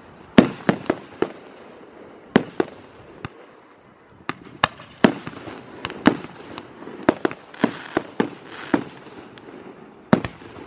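Aerial firework shells bursting: about twenty sharp bangs at irregular intervals, some in quick clusters, over a steady background crackle, with a stretch of hissing crackle about three quarters of the way through.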